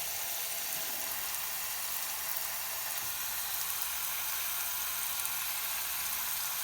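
Water spraying under pressure from a burst water pipe: a steady hiss.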